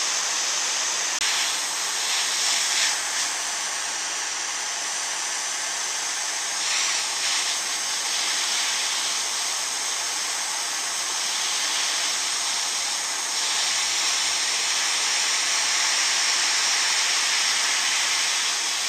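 Gas torch flame hissing steadily as it heats the spring-steel tip of a pickeroon for hardening.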